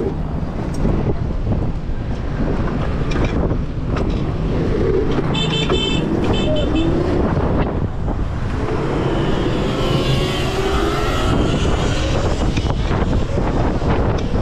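Wind buffeting the microphone with road noise while riding a Razor RSF electric bike. About five to seven seconds in, a string of short high beeps sounds; from about nine seconds a faint whine rises in pitch as the bike speeds up.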